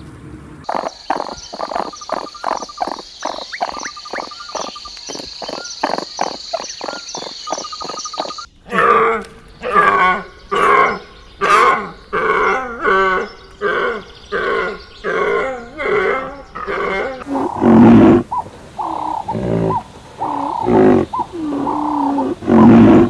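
Animal calls in three stretches: a fast series of short pulsing calls, then pitched calls repeated about once a second from about eight seconds in, then lower, louder calls in the last few seconds.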